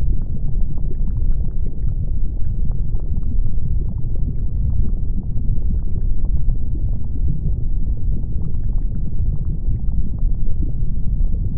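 Erupting volcano and lava flow: a deep, steady rumble with many small crackles scattered throughout.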